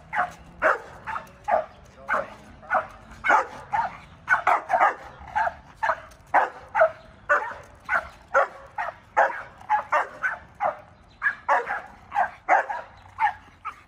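A dog barking over and over at about two barks a second, without let-up: reactive barking at other dogs.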